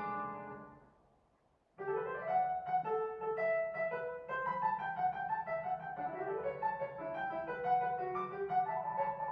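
Piano music: one piece fades out over the first second or so and stops briefly. Another piano piece then begins abruptly, with rising runs of notes.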